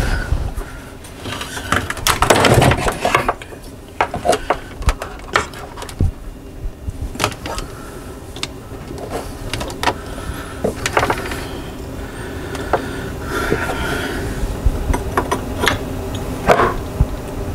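Scattered clicks, knocks and rustling of hands and an open-end wrench working on plumbing fittings under a sink, tightening a connection that has a slight drip. A louder scraping rustle comes about two seconds in.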